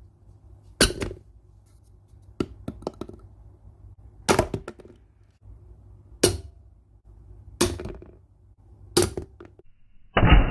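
A run of sharp knocks, single or in quick groups, every second or two over a low hum; a louder, rough sound starts just before the end.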